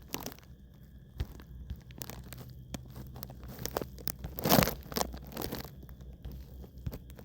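Scattered small clicks and rustling close to the microphone over a steady low hum, with a louder rustle about four and a half seconds in.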